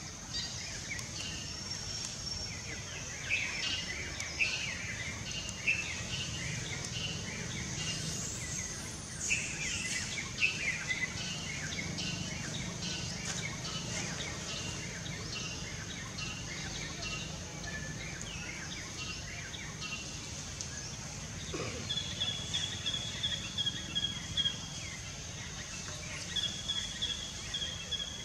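Outdoor ambience: a steady, high insect drone with scattered short bird chirps in the first half, and a repeated high, trilling bird call near the end.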